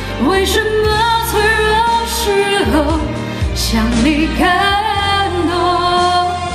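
A woman singing a Mandarin pop ballad over a backing track with a sustained bass line, holding long notes that bend between phrases.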